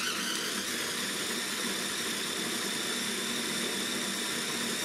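Morphy Richards food processor's motor running at a steady pitch with a faint high whine, its blades puréeing a bowl of roasted tomatoes.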